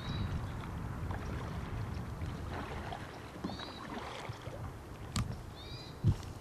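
Outdoor river-bank ambience: a steady low rumble of wind on the microphone, with a small bird giving three short chirps. Two sharp knocks near the end, the second the loudest sound.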